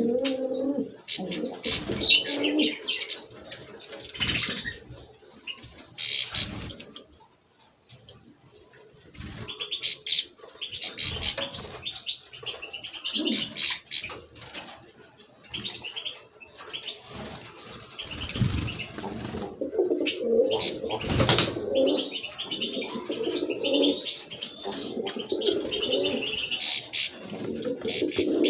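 Pigeons cooing over and over, with small songbirds chirping and twittering at a much higher pitch. A short, loud rustle cuts through about three-quarters of the way in.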